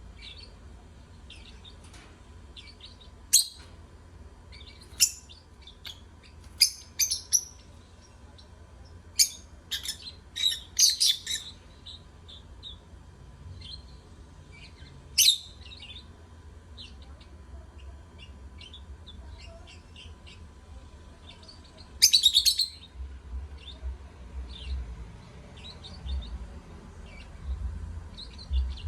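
Lovebirds chirping: sharp, loud high calls every second or few, with softer twittering between them. There is a cluster of calls about ten seconds in and a loud burst followed by busier chatter in the last third.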